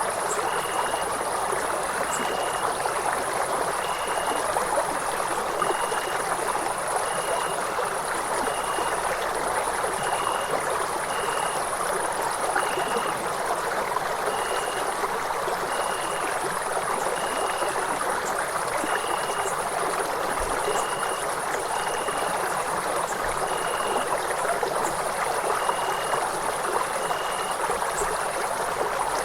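Steady rush of a flowing stream, with night insect calls over it: a high trill in long stretches and a shorter chirp every second or two.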